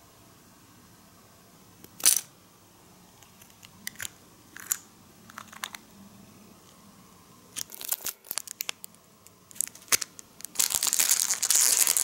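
Small hard plastic miniature pieces clicking and tapping as they are handled, a sharp click about two seconds in being the loudest, among them a tiny clear plastic jar and lid. Near the end a thin plastic bag crinkles steadily for a couple of seconds.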